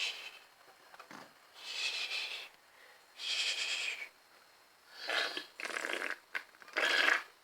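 A person's breathy mouth noises: a run of short rushes of air, each under a second long, coming about every second and a half. The last three are harsher and reach lower.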